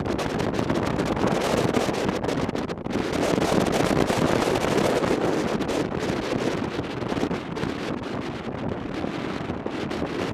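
Wind rushing over the microphone of a camera on a moving motorcycle: a continuous noise with a brief dip about three seconds in.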